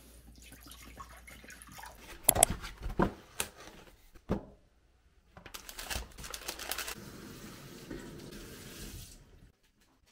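Water poured from a plastic bottle into a glass dog bowl, followed by a few sharp clicks and a single knock. Then a paper bakery wrapper and box are handled, rustling and crinkling for a few seconds before it goes quiet near the end.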